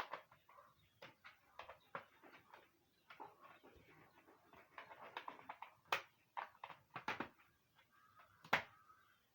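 Faint, irregular clicks and taps of a laptop's plastic casing and parts being handled, some a few per second, the loudest about six and eight and a half seconds in.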